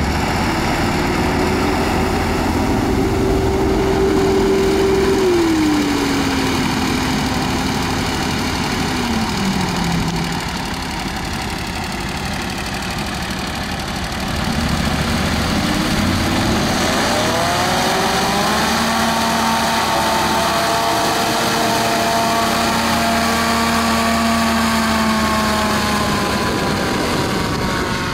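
Hovercraft's engine and ducted propeller fan running steadily, its pitch stepping down twice to a lower idle in the first ten seconds. About fifteen seconds in it revs up sharply and holds high as the craft drives away across the sand, the pitch sinking slowly near the end.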